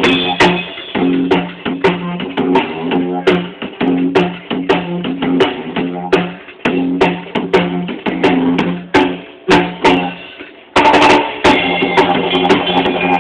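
Live didgeridoo and drum-kit music: a rhythmically pulsing didgeridoo drone over a steady kit beat. The drone breaks off for about a second near the ten-second mark, then comes back louder.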